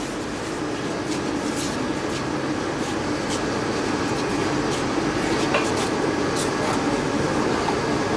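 Steady murmur of an audience crowd, with a few faint clicks scattered through it.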